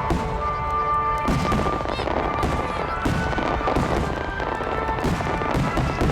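Aerial fireworks shells bursting over and over, sharp bangs with crackle, while music plays through the venue's loudspeakers.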